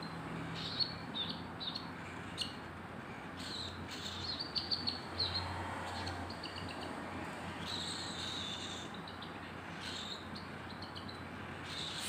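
Baby cockatiel chick making short, high chirping begging calls in irregular bursts as it is hand-fed from a syringe, with a few sharp clicks.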